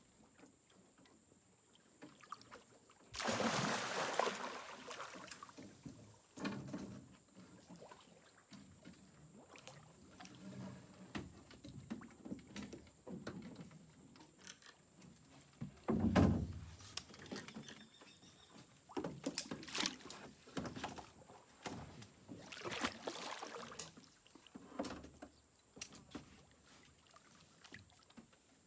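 Water splashing and knocking around a small fishing boat: a long splash about three seconds in, a heavy thump near the middle, and several more splashes later on.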